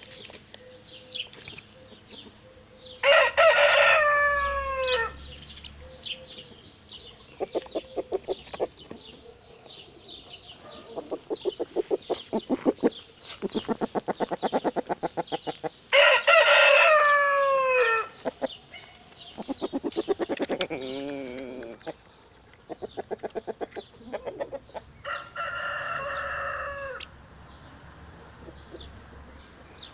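Backyard chickens: a rooster crows loudly twice, about three seconds in and again about sixteen seconds in, with a weaker call near the end. Between the calls come quick runs of clucking.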